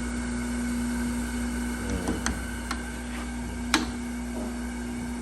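Metal clicks and knocks from the table and lock handles of a Chevalier FCG-610 tool and cutter grinder being worked, over a steady hum. A handful of clicks start about two seconds in, with one sharp knock just before the middle as the loudest sound.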